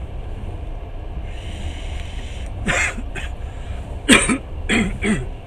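A person coughing about five times in short, harsh bursts, starting about two and a half seconds in, the loudest just after four seconds. Under it runs the steady low rumble of the moving passenger train.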